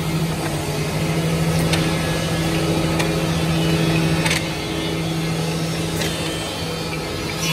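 A CNC tenon milling machine running in a woodworking shop, giving a steady motor hum. Sharp clicks come four times, and the hum drops a little after the third, about midway.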